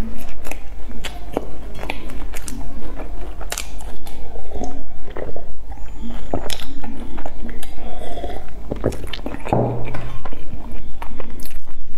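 Close-miked eating sounds: chewing a soft bun with frequent sharp mouth clicks, and sips from a glass about halfway through.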